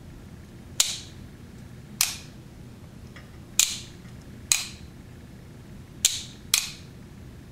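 Light switches being clicked off and on: six sharp, short clicks at uneven intervals, two in quick succession about six seconds in.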